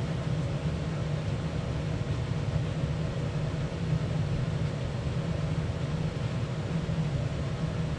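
Steady low mechanical hum with a hiss and a faint steady tone, unchanging throughout, like a running fan or air-conditioning unit.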